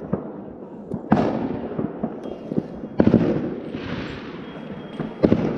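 Fireworks exploding: three loud booms about two seconds apart, each rolling away in a long echoing rumble, with smaller pops and crackles between them.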